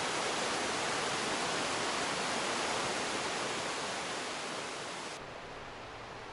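Rushing river and waterfall: a steady, even rush of water that eases off slightly, then cuts to a much quieter, softer background hiss about five seconds in.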